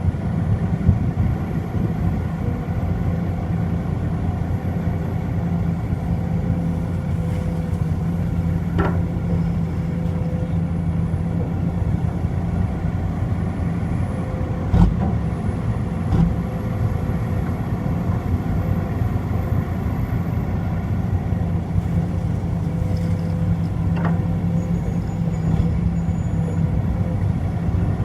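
Heavy diesel engine running steadily under a low, even hum, with a few sharp knocks, the loudest about halfway through.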